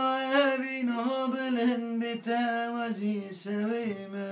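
A man singing solo, holding long notes with wavering, ornamented turns.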